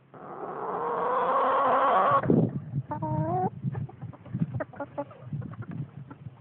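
Chickens calling: a long call of about two seconds that swells and then cuts off abruptly, a shorter call about a second later, then scattered soft clucks.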